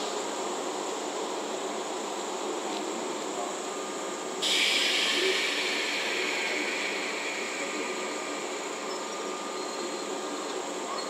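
A JR West 381-series limited express electric train standing at the platform with a steady background hum. About four seconds in, a sudden loud hiss of air starts and fades over several seconds, typical of the air brakes releasing as the train gets ready to pull away.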